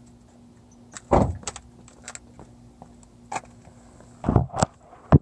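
MagnaFuel 750 electric fuel pump running cold with a steady low hum, broken by heavy thuds about a second in and again near the end. This thud is the fault the owner hears only when the temperature is around 20 degrees. The hum cuts off shortly before the end.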